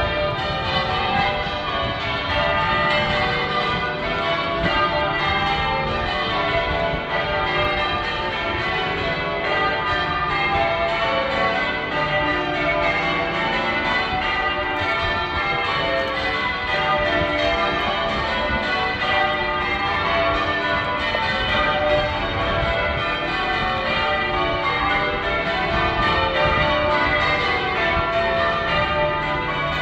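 Manchester Cathedral's church bells being rung in changes, a continuous stream of overlapping bell strikes that never pauses.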